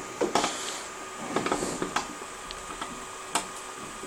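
Irregular mechanical clicks and light knocks, a single one near the start, a quick cluster in the middle and another past three seconds, over a steady faint hum with a few thin constant tones.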